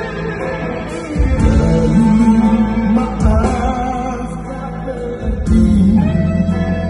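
Live rock band playing: male lead vocal over electric guitar, bass and drums, with heavy drum hits about every two seconds.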